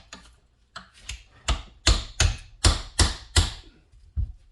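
A series of about eight sharp metal taps, two to three a second, getting louder toward the middle: a hammer striking a chisel set against a hydraulic cylinder's gland, turning it to work the retaining hook wire out.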